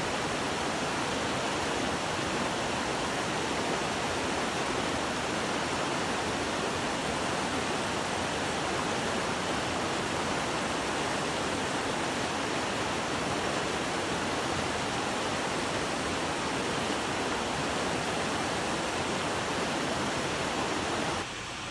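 Roadside waterfall: a steady rush of falling water that cuts down abruptly near the end.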